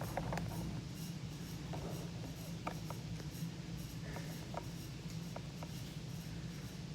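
Faint handling noise as a phone is set in position: scattered small clicks and light rubbing over a steady low hum.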